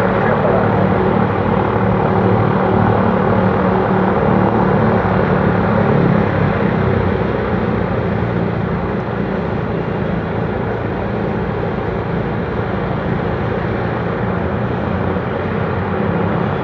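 Lockheed Super Constellation's four Wright R-3350 radial piston engines running steadily as the airliner taxis, a dense propeller drone that eases off slightly about six seconds in.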